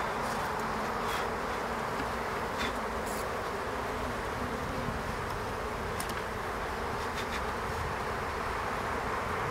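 Honeybees from an opened hive humming, a steady buzz, with a few faint clicks.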